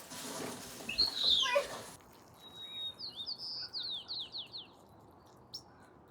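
A loud noisy rush with a short high squeal for about two seconds, then it cuts off. A songbird follows: a steady high whistled note, then a quick run of falling chirps, then a few single chirps.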